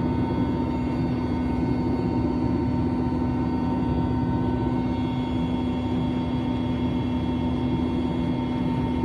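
Helicopter in flight: a steady engine and rotor drone with a constant low hum running through it.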